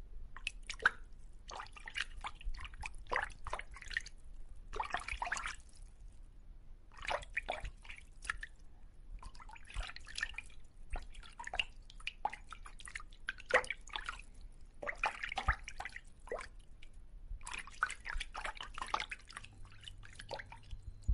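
Water dripping and splashing in quick, irregular clusters of small sharp drops.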